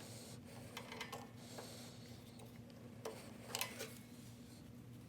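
Scattered light clicks and taps of hands working a short rubber fuel hose and its fittings into place, loudest about three and a half seconds in, over a steady low hum.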